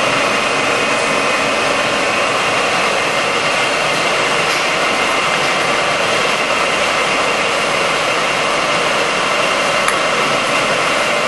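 Lodge & Shipley 24-inch engine lathe running without cutting, its spindle and 21-inch four-jaw chuck turning under the 15 horsepower main drive motor: a steady, even machine noise with a faint high whine.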